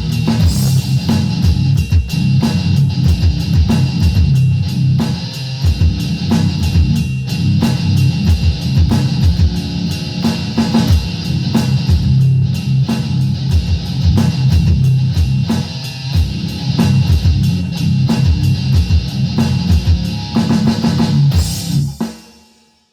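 Rock band playing an instrumental passage on electric guitar and drum kit, stopping abruptly near the end.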